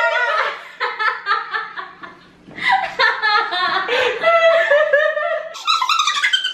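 Two women laughing hard together in repeated high-pitched bursts, with a short lull about two seconds in.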